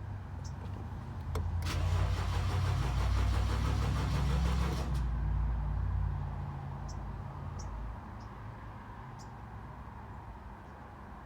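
2011 BMW X3 being started: a click, then the starter cranks for about three seconds before the engine catches and runs, its speed settling lower a few seconds later. The long crank before starting is the fault being looked into.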